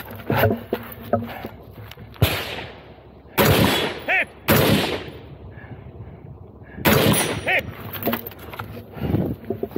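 Gunshots fired one at a time at irregular intervals, a second or more apart, during a practical shooting stage; about five loud shots.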